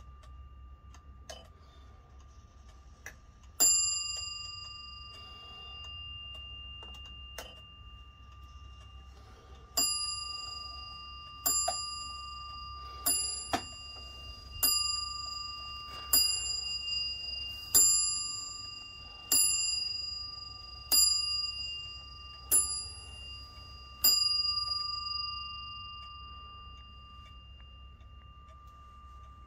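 Bell strike of a Warmink Friese tail wall clock: one strike about four seconds in, then ten strikes about one and a half seconds apart, counting out the hour. Each strike rings on and dies away, with a few faint clicks from the movement between.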